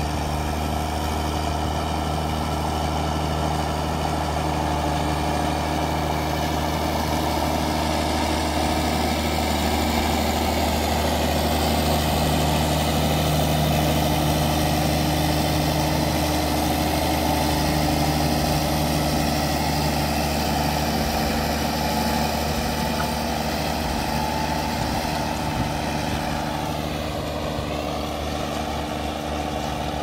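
Ford TW-25 tractor's straight-piped six-cylinder turbo diesel working under load, pulling a four-furrow Kverneland plough. A steady, deep engine note grows louder as the tractor passes close and fades as it moves away near the end.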